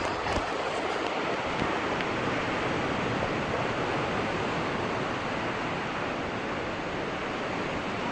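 Sea waves washing onto a beach: a steady rush of surf.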